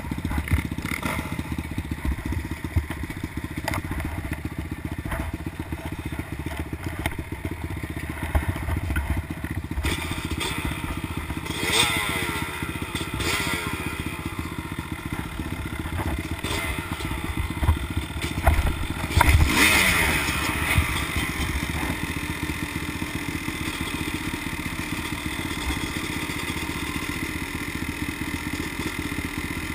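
Dirt bike engines idling steadily, with bikes being revved a few times around the middle, the pitch rising and falling.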